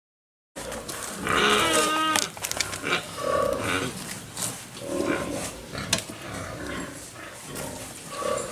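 Farm animal calls: after half a second of dead silence at an edit, one drawn-out call falling in pitch about a second in, then shorter, lower calls, with a sharp knock near six seconds.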